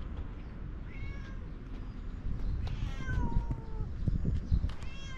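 Orange tabby cat meowing: a short meow about a second in, a longer drawn-out meow falling slightly in pitch around three seconds, and another starting near the end. A few low thumps sound under the middle of it.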